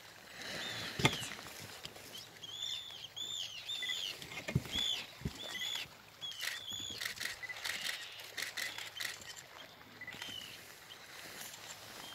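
Birds calling: many short, high, arched calls repeated in quick series, thickest in the middle, with scattered clicks and a few low thumps.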